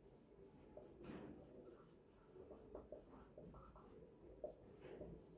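Faint scratching and squeaking of a marker writing on a whiteboard, in short irregular strokes.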